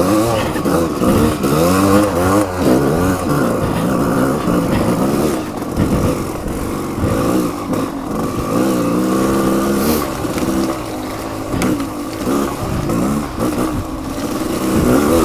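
Off-road motorcycle engine revving up and down again and again as it is ridden over a slippery trail, with a few brief knocks and clatters.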